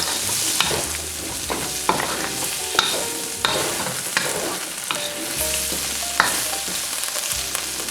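Chicken and vegetables sizzling in a hot pan as they are stir-fried, with a utensil repeatedly knocking and scraping against the pan; some knocks ring briefly.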